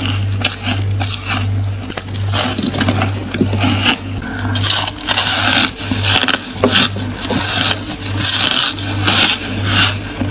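Ice being bitten and crunched between teeth, with rapid, irregular crunches and scrapes as the pieces break up. A low, pulsing hum runs underneath.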